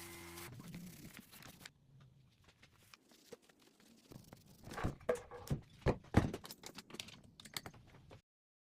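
Irregular run of sharp clicks and light knocks, sparse at first and thickening about halfway through, loudest a little after the middle, then cutting off just before the end.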